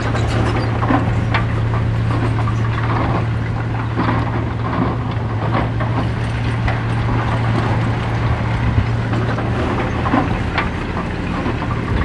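Heavy diesel earthmoving machine engine running steadily, with irregular metallic clanks and rattles over it.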